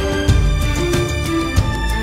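Orchestral film-score music laid over the video, with sustained notes and a few low drum hits.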